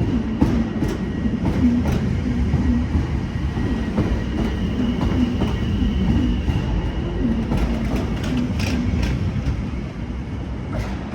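British Rail Class 710 Aventra electric multiple unit pulling away, with rumble, a steady high whine and wheels clicking over rail joints, easing off near the end.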